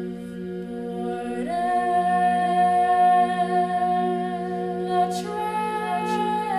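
Wordless singing or humming over a steady low drone: the voice slides up into a long held note about a second and a half in, then steps up to a slightly higher note near the end.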